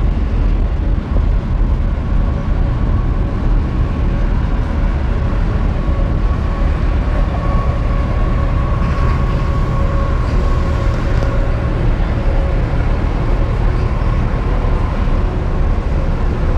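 Busy city-street traffic of buses and cars: a loud, steady low rumble with a thin, steady whine running through it.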